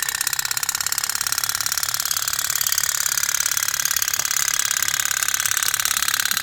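Toy pop-pop boat (candle-heated putt-putt steam boat) running, its engine giving a steady, rapid putter.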